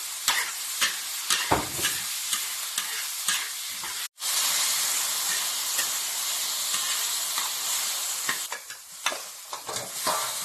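Pickled Chinese cabbage (suancai) sizzling as it is stir-fried hard in a hot pan, with a spatula repeatedly scraping and clacking against the pan. The sound cuts out suddenly for an instant about four seconds in.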